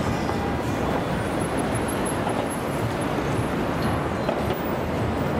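City street ambience: a steady rumble of road traffic from passing cars.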